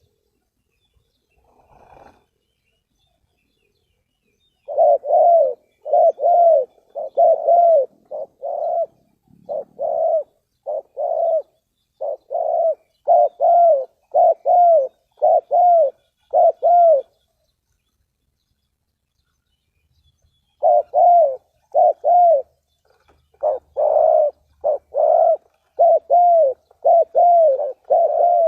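Spotted dove cooing in long runs of short coos, each note dipping in pitch. The calling starts about five seconds in, pauses for a few seconds in the middle, then resumes.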